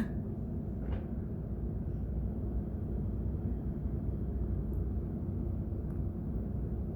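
Steady low background rumble with no clear event, and a faint brief sound about a second in.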